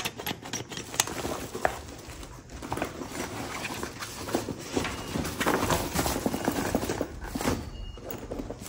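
Rustling with scattered clicks and knocks as a backpack and its packaging are handled.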